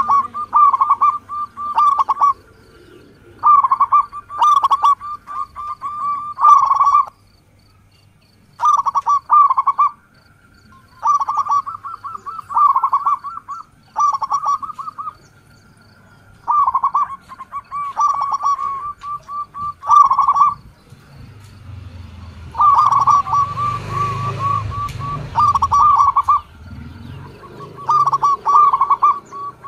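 Zebra dove (perkutut) cooing: phrase after phrase of quick stuttering notes running into short held coos, about one to one and a half seconds each, with short gaps between. A low rumbling noise swells underneath about two-thirds of the way through.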